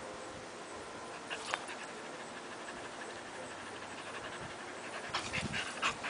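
Pointer dog panting, with a few louder short sounds near the end.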